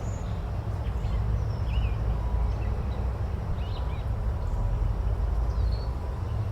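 Forest ambience: a steady low rumble under a noisy hiss, with faint, scattered bird chirps.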